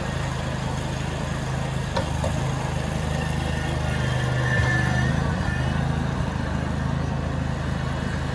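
Engine of a large construction machine running steadily at a low, even pitch, with a brief click about two seconds in.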